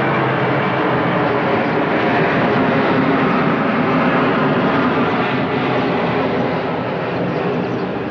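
Airplane engines running loud and steady, swelling a little toward the middle and easing slightly near the end.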